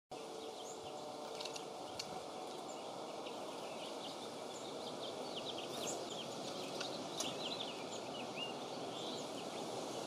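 Steady wind noise with small songbirds chirping. A flurry of short, high, falling chirps comes about halfway through, along with a few sharp ticks.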